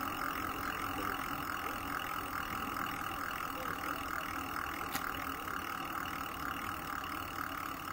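Steady rushing noise of a bicycle ride: wind and tyre noise on the rider's camera microphone, with one short click about five seconds in.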